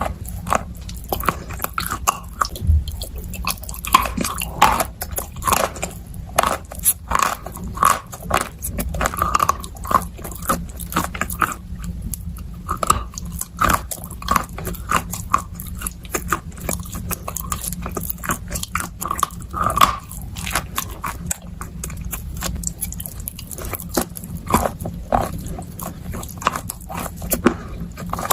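Close-miked biting and chewing of chalk and dry clay pieces coated in wet clay paste: dense, irregular crisp crunches, several a second.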